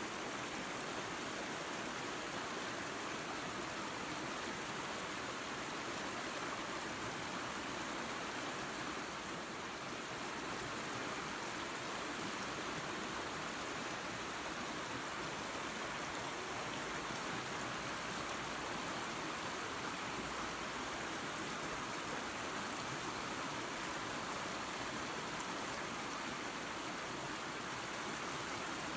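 Small waterfall and creek running water: a steady, even rush of falling and flowing water.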